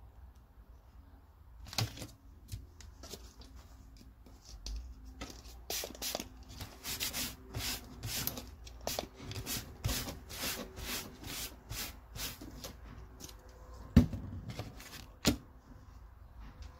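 A cloth rag rubbed back and forth over a piece of tarpaulin fabric at about two strokes a second. Two sharp knocks follow near the end.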